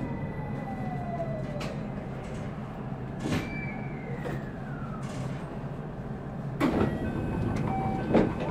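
Electric commuter train running, heard from the driver's cab: a steady rumble under the whine of the traction motors, which falls in pitch twice as the train slows. In the second half come a few sharp clicks or knocks.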